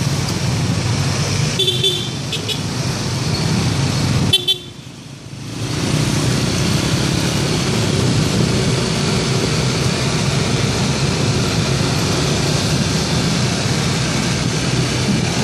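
A convoy of Yamaha NMAX scooters running along a street, with steady engine, road and wind noise. Short horn toots sound about two seconds in and again about four seconds in. Just after the second toot the noise briefly drops away for about a second.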